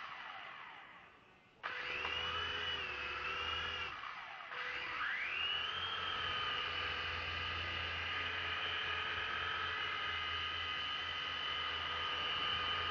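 Syma S026G Chinook RC helicopter's electric rotor motors spun up on the bench: a high, quite loud whine that starts suddenly about a second and a half in, eases off briefly, then rises in pitch and holds steady.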